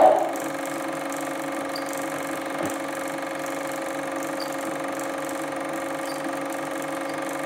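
Super 8mm film projector running with a steady hum, heard while the film's soundtrack is silent; a faint knock comes about two and a half seconds in.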